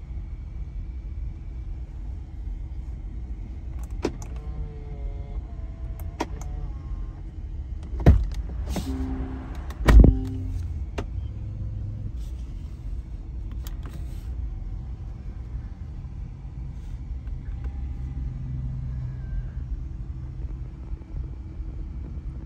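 Small electric motors in the Range Rover's door working as the door-panel switches are pressed: clicks, then a whine that changes in pitch, and two loud thumps about 8 and 10 seconds in. All of it sits over the steady low hum of the 4.4-litre twin-turbo V8 idling.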